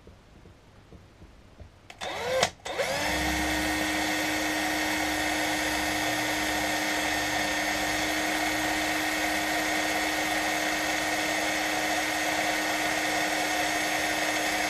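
Cordless drill with a small centre drill, boring a pilot hole into a metal mirror-holder plate. After a brief burst of the motor about two seconds in, it runs at a steady speed with an even whine.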